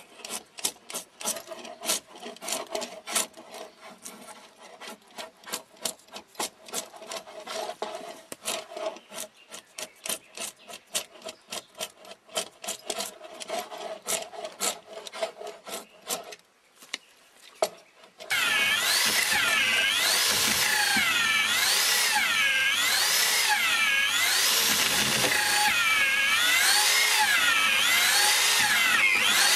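A drawknife scraping along a round log in quick repeated strokes, shaving the wood. After a short pause about 17 seconds in, an electric drill runs, boring a hole into the log with an auger bit, its whine rising and falling over and over.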